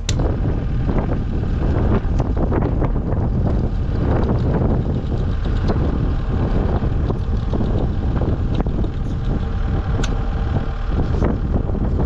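Lucas swing-blade sawmill's gasoline engine running steadily with its saw blade spinning while the saw head is wound down for the cut.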